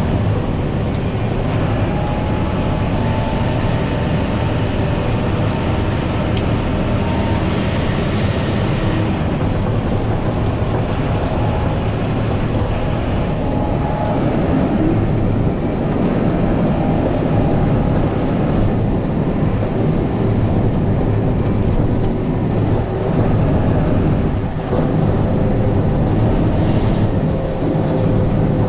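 John Deere 7530 tractor's six-cylinder diesel engine running steadily under load, heard from inside the cab while it pushes snow with a front plow. A few faint steady whines sit above the rumble.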